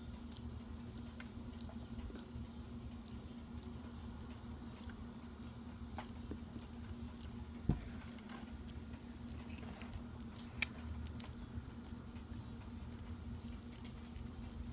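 Argentine tegu eating banana: faint, scattered wet clicks and smacks of its jaws. Two sharp clicks stand out, one about halfway through and one later, over a steady low hum.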